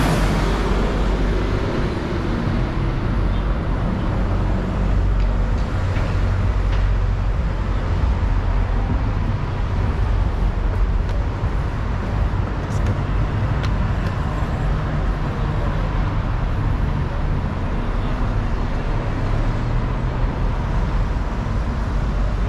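Road traffic on a busy city street: a steady rumble of passing cars and buses, with a heavy lorry passing close at the start.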